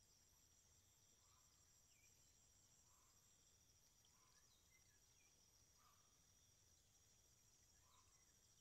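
Near silence with the faint, steady high-pitched trilling of insects, typical of crickets, and a few soft, short chirps at irregular intervals.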